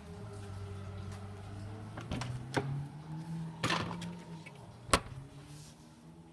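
A car door being handled and opened: a few clicks and knocks, the sharpest about five seconds in, over a steady low hum.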